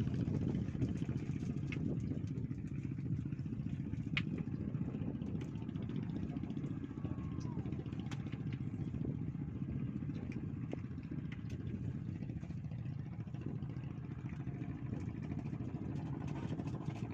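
Strong wind buffeting the microphone: a steady low rumble, with a few faint clicks scattered through it.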